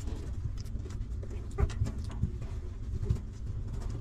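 Newborn puppies nursing, making small soft grunts and squeaks, with scattered soft clicks over a steady low rumble.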